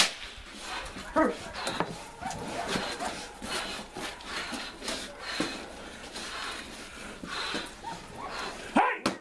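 A young shepherd dog in protection training biting and tugging at a helper's padded bite jacket: scuffling and rustling of the padding mixed with the dog's growls and indistinct voices, with a sharp crack right at the start.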